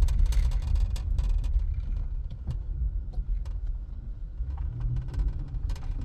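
Low rumble of a car driving over a rough, dipping mountain road, with scattered light knocks and clicks from the bumpy surface.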